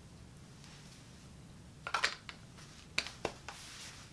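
Knife being slid back into its belt sheath: a few light clicks and short scrapes, in two clusters about two and three seconds in.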